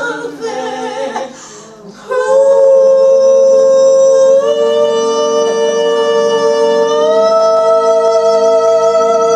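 A singer holds and lets go of the final sung note with vibrato. About two seconds in, a loud sustained instrumental chord takes over and holds steady, shifting to new chords twice as the song closes.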